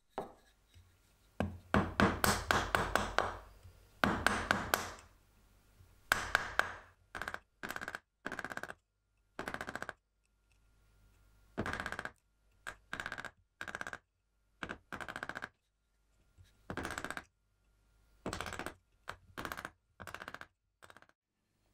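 A hand woodworking tool cutting wood in short repeated strokes, each stroke a brief rasping scrape, with pauses between runs of strokes while waste is cut out of a wooden board.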